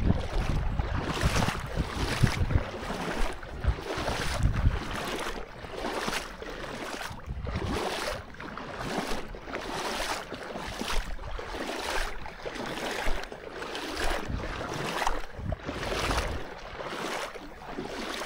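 Water splashing and sloshing in a steady rhythm, about one to two splashes a second, with a few low thumps.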